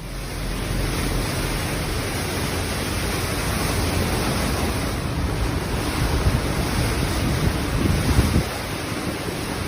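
Steady rushing noise of fast-flowing floodwater, with wind buffeting the microphone and a fluttering low rumble.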